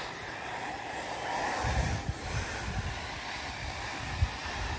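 Wind buffeting the microphone over the distant sound of ARRMA Typhon 6S brushless electric RC buggies racing on a dirt track, with one sharp knock about four seconds in.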